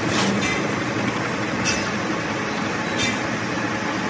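Metal lathe running with a twist drill in the tailstock chuck boring into the centre of a spinning metal workpiece: steady machining noise with a few sharp clicks.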